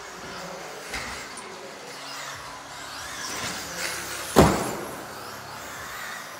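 RC off-road car running on an indoor carpet track, its motor giving a high whine that rises and falls, with a small click about a second in and one sharp, loud knock about four and a half seconds in.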